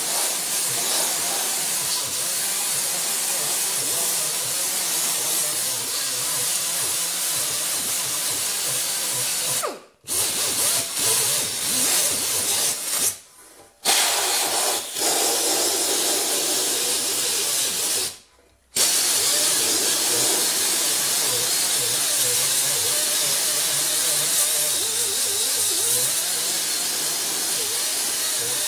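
Small air-powered Roloc sander with a 2-inch disc running steadily, its air hiss mixed with the rasp of the disc sanding down body filler. It stops briefly three times: about a third of the way in, near halfway and about two-thirds through.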